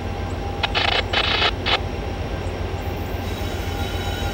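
Distant approaching diesel freight train led by a Norfolk Southern SD70ACe locomotive: a low, steady rumble. About a second in comes a short cluster of three quick, higher sounds.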